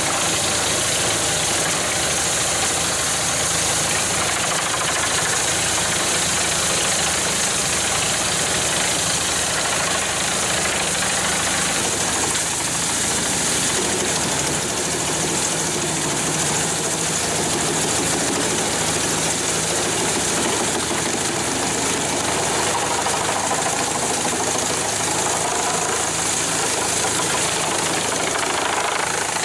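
A heavy machine's engine running steadily, with a constant hissing noise over it.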